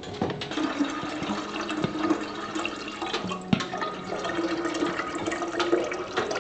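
Water poured from a jug into a copper kettle, a steady filling stream.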